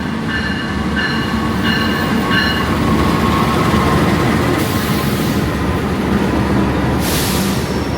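Train moving on the rails: a loud, steady rumble of wheels and running gear. In the first couple of seconds it carries four short, repeated high tones, then a thin wheel squeal, and two short bursts of hiss come near the middle and near the end.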